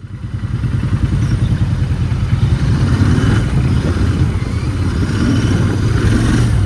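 Motorcycle engine running under throttle, loud, with a dense low pulsing rumble, building up over the first second and then holding steady.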